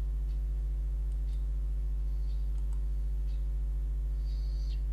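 Steady low electrical mains hum with a stack of overtones, and a few faint clicks of a computer mouse over it.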